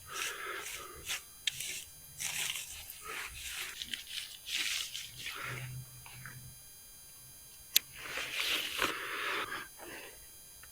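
Rustling and scraping from handling a one-man tent's nylon fabric and gear, in irregular bursts, with one sharp click about eight seconds in.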